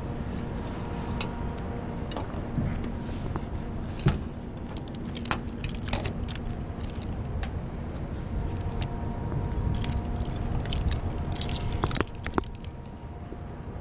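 Carabiners and other metal hardware on a rope-access harness clinking and jingling in quick, irregular clicks as the ropes and descender are handled, thickest from about four seconds in. A steady low rumble runs underneath.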